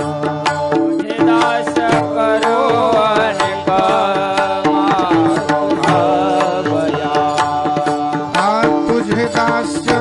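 Marathi kirtan devotional music: a sung melody over sustained accompanying notes, with steady rhythmic hand-drum strokes.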